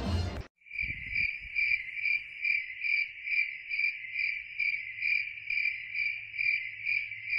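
Cricket chirping sound effect: a steady high trill pulsing about two and a half times a second, starting about half a second in. It is the 'crickets' gag marking a joke that fell flat.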